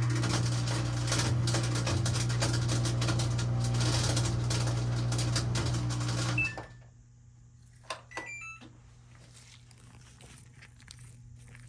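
Samsung front-load washer's drain pump running with a loud hum and a rattling grind for about six seconds, then cutting off: the noisy pump that is being replaced. About a second later a few short beeps step up in pitch.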